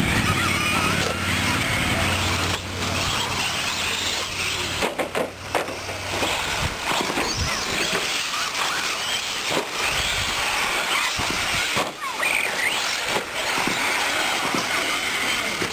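Electric 1/10-scale 4wd short course RC trucks racing on a dirt track, their electric motors whining up and down in pitch as they accelerate and slow. A low hum runs under it for about the first five seconds, then stops.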